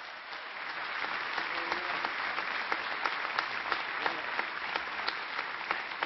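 Large audience applauding, the clapping swelling over the first second and easing off slightly near the end.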